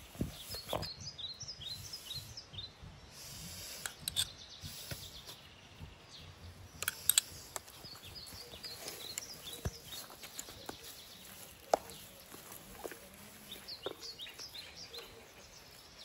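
Hands kneading wet chapati dough in a metal pot, with soft squelches and occasional knocks against the pot. Small birds chirp in short bursts now and then.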